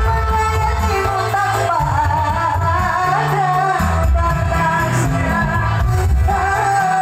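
A woman singing into a microphone over backing music with a changing bass line.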